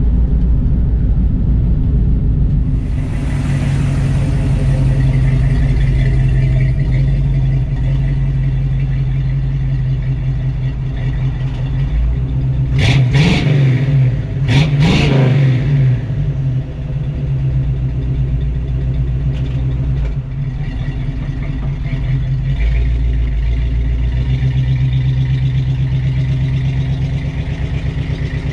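1971 Chevrolet C10's V8 running through its new dual exhaust with Flowmaster-style mufflers as the truck drives. About halfway through, two quick sweeps in the exhaust note come a couple of seconds apart as the truck goes by, and then a steady drone returns.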